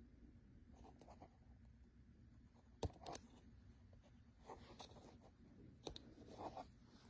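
Quiet handling of a small plastic action camera: faint rubbing and a few small clicks, the sharpest about three seconds in.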